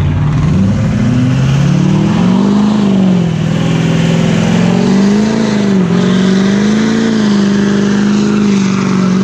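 Pickup truck engine revving up about a second in and held at high revs, wavering up and down, while its rear tyres spin in a smoky burnout, with a steady hiss of spinning tyres underneath.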